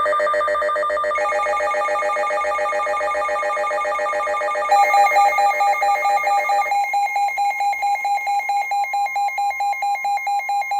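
Several weather radio receivers sounding their alert alarms at once, warning of a severe weather alert: rapid, pulsing electronic beeps stacked over one another. Another alarm joins about a second in, a louder one near five seconds, and one stops near seven seconds.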